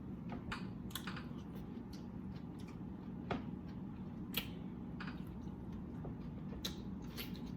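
Close-miked eating sounds: irregular wet clicks and smacks of chewing, a few of them sharper and louder, over a low steady hum.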